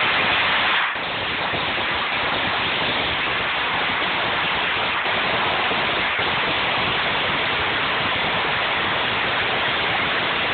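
A ground fountain firework spraying sparks: a steady, even hiss with no bangs, a little louder in the first second, cutting off suddenly near the end as it burns out.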